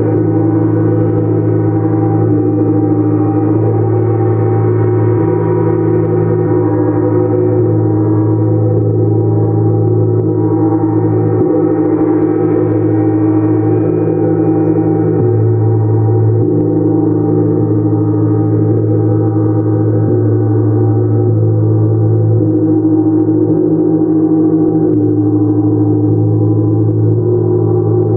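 Gongs played continuously as a sound bath: a dense, steady wash of overlapping ringing tones, the strongest pitches shifting every few seconds as they are played.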